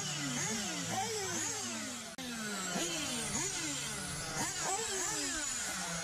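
Several nitro RC car engines running at high revs, their pitch rising and falling over and over as the throttle opens and closes, over a steady low hum. The sound drops out briefly about two seconds in.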